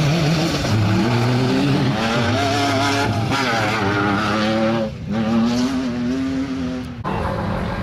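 Off-road race cars' engines revving hard as they pass on a dirt track, the engine note climbing and dropping with the throttle and gear changes. The sound breaks off sharply about five seconds in and again near seven seconds.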